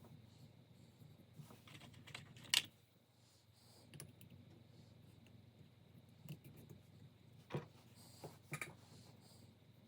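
Scattered light clicks and clinks of small metal engine parts and hand tools being handled during reassembly, the sharpest about two and a half seconds in, over a low steady hum.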